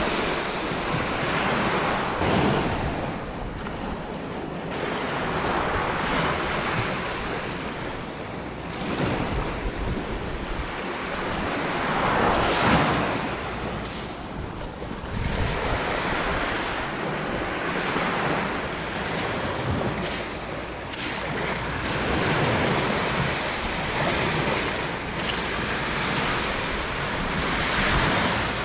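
Sea waves washing onto a sandy beach, the surf swelling and falling every few seconds, with wind buffeting the microphone.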